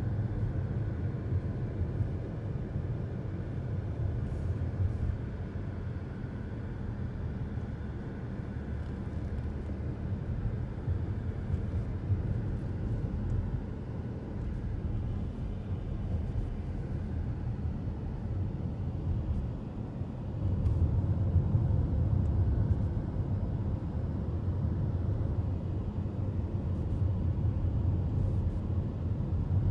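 A car's engine and tyres give a steady low rumble, heard from inside the cabin while driving; it grows louder about two-thirds of the way through.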